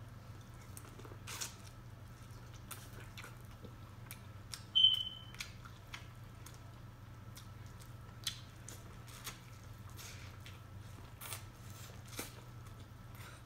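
Close-miked eating of seafood boil: mouth clicks, lip smacks and soft bites while chewing, over a faint steady hum. About five seconds in, a single short high beep is the loudest sound.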